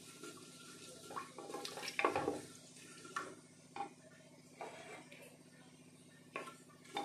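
Wooden spatula stirring and scraping inside an aluminium pressure cooker, knocking against the pot several times, loudest about two seconds in, while cumin seeds fry in hot oil with a faint sizzle.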